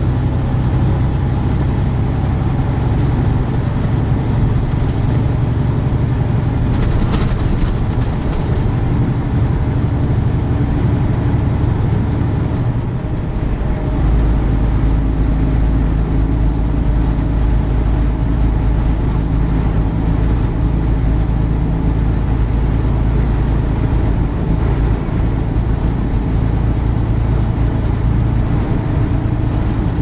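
Semi truck's engine and road noise heard inside the cab at highway speed, a steady drone. Near the middle it dips briefly and comes back with a deeper, stronger hum.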